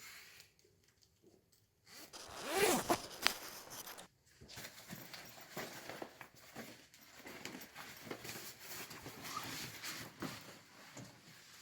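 A quick rasping pull a little over two seconds in, then a run of small irregular clicks and rustles, like an object being handled.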